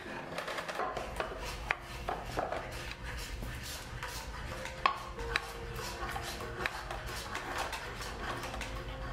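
Green-wood spindles being shaved by hand at shaving horses: repeated short scraping strokes of steel edge tools on wood, with a few sharp clicks and knocks, the loudest about five seconds in.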